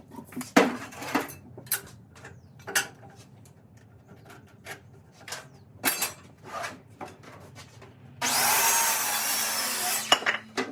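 Heavy oak planks knocked and shifted in a string of separate wooden clunks. Then, near the end, a power tool runs into the wood for about two seconds, the loudest sound here.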